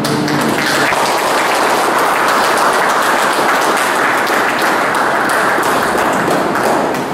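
A small group of people applauding, the clapping tailing off near the end.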